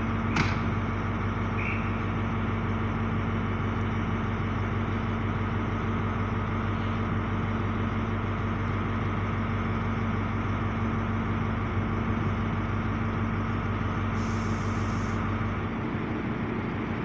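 Class 43 HST power car's diesel engine idling with a steady deep hum. A brief high hiss comes about fourteen seconds in, and the engine note shifts just after.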